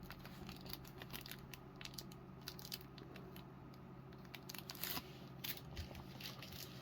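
Faint handling noises of trading cards and their packaging: scattered light clicks and crinkles, a little louder about five seconds in, over a low steady hum.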